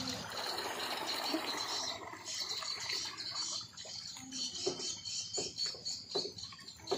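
Shallow seawater lapping at a wooden waterfront edge, with a few short splashes and knocks in the second half as a hand dips into the water.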